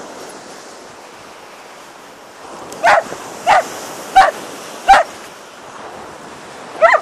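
A dog barking: four short barks in quick succession about three seconds in, then one more near the end, over a steady background hiss.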